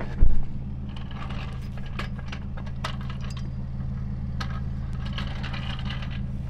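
Nissan NV1500 cargo van's engine idling steadily, with scattered metal clicks and scrapes of a floor jack and its handle being worked under the rear end. A heavy low thump comes a fraction of a second in.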